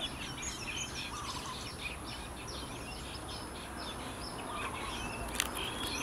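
Unseen birds calling in the trees: a running series of short, high, falling chirps, about two or three a second, over a steady high whine, with one sharp click near the end.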